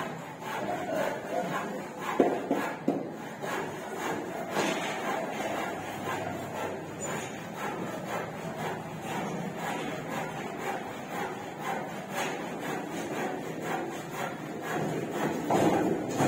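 Indistinct voices and general work noise, with a few sharp knocks.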